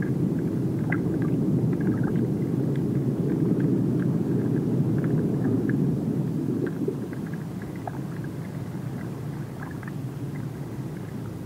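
Ambient soundtrack of a short film on ocean life: a steady low rumbling drone with faint scattered clicks above it, easing down about six seconds in.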